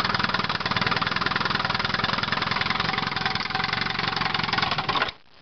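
1958 Evinrude Sportwin 10 hp two-cylinder two-stroke outboard running steadily, then cutting out abruptly near the end as the motor is shut off.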